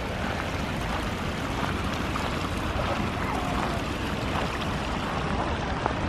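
Small woodland brook of snowmelt running steadily, water trickling and splashing over a little cascade.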